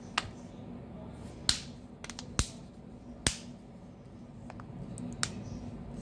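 Samsung Galaxy M22 back cover snapping onto the phone's frame as it is pressed home along the edge: a series of sharp, irregular clicks, about five loud ones and a few fainter. This is the clips of the cover seating.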